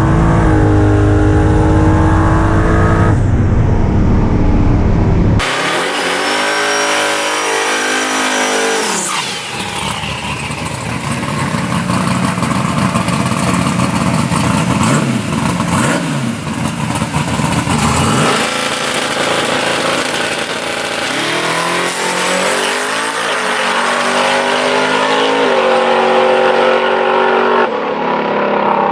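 Drag-racing car engines at full throttle, revving and accelerating, with pitch climbing as they pull through the gears. The sound changes abruptly about five seconds in.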